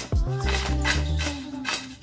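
Background music with deep bass notes and a beat, over the rattle of crispy fried potato cubes tossed in a stainless steel bowl.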